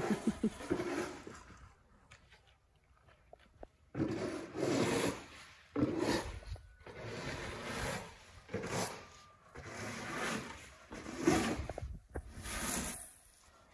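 Snow shovel scraping across a snowy concrete driveway, pushing snow in repeated strokes about a second apart, starting about four seconds in after a short lull.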